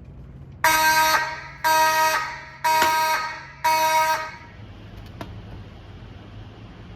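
Simplex 2903 fire alarm horn sounding four short blasts about a second apart, each dying away in the room after it stops: a walk-test signal.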